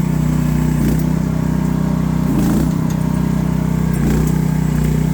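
AGT H12R mini excavator's engine running steadily at raised throttle while the machine is worked. Its pitch sags briefly three times, about one, two and a half and four seconds in.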